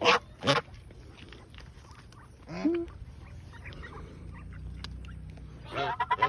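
Geese honking: a pair of short honks at the start, another about two and a half seconds in, and a quick run of honks near the end.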